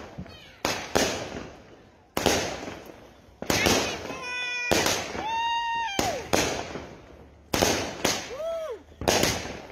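Consumer aerial fireworks going off in quick succession: about ten sharp bangs, roughly one a second, each trailing off in a crackle. A few pitched, whistle-like tones slide down in pitch between the bangs.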